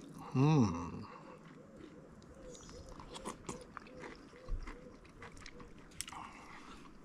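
A man chewing a mouthful of coconut meat and cream crackers: soft wet chewing and crunching, opened by a short hummed "mmm" of enjoyment.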